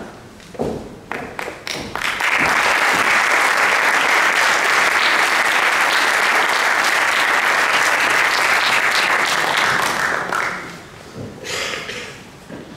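Audience applauding: a few scattered claps that quickly swell into steady applause, which fades away about ten seconds in.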